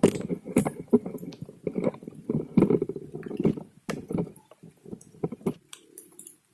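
Water splashing and sloshing in quick, irregular bursts as caught catfish thrash in a container of water, busiest at first and thinning out towards the end.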